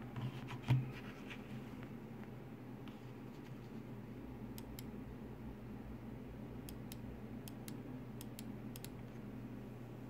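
Logitech G403 Prodigy gaming mouse buttons clicking: about five press-and-release pairs of crisp, light clicks in the second half. A soft thump comes near the start.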